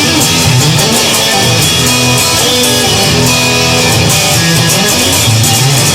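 Instrumental passage of a rock song, led by electric guitar, with no vocals.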